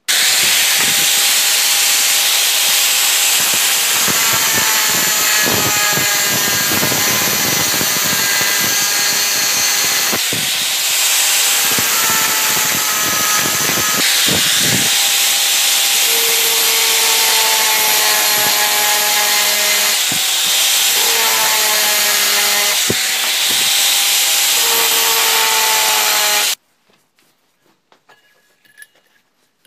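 Angle grinder with an abrasive cut-off wheel cutting through square steel tube: a loud, steady grinding hiss over the motor's whine, which sags in pitch now and then as the wheel bites. It cuts off abruptly near the end, followed by a few faint metallic clinks.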